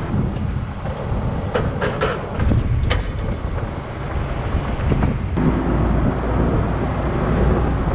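Case IH tractor's diesel engine running steadily while reversing to a forage wagon, with a few metal clanks and rattles about one and a half to three seconds in and a single click a little past five seconds.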